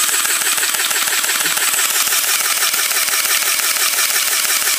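Pulse M74DP battery-powered airsoft carbine firing on fully automatic: a continuous, rapid, even rattle of its motor-driven spring mechanism cycling and shooting BBs. Its rate of fire is sagging because its four AA batteries are running low.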